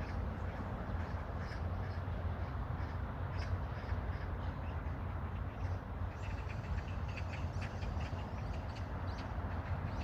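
Background birds calling in short chirps, thicker in the second half, over a steady low rumble of wind on the microphone.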